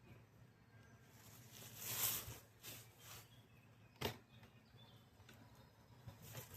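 Bee smoker bellows puffed several times: short hissing whooshes of air and smoke, the loudest about two seconds in and a sharp, brief one about four seconds in.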